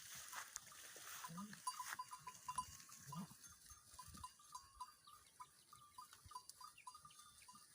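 Goats grazing, with two short, faint bleats about a second and a half and three seconds in, over a faint irregular ticking.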